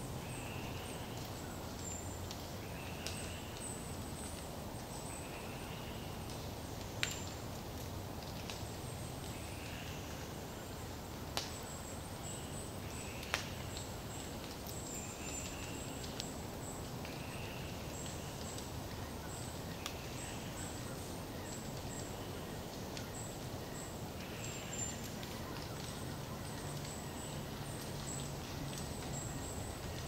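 Forest ambience over a steady low background rumble. A short chirp repeats about every two seconds, with faint high, thin calls above it. A few sharp clicks or snaps come in the middle.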